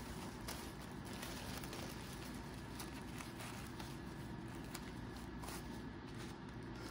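Soft rustling and crinkling of a thin tissue sewing-pattern sheet being folded and handled.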